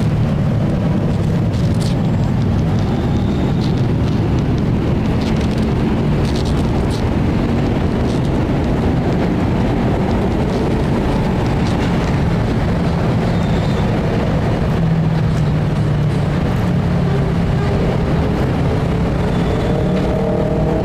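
Steady low rumble of motor traffic, with a faint engine hum that drifts slightly in pitch.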